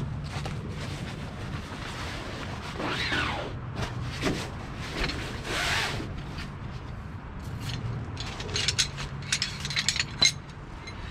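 Rustling of fabric as a folding camping chair is pulled out of its bag, then, from about two-thirds of the way in, a run of sharp clicks and clinks as the chair's metal-pole frame is unfolded, over a steady low hum.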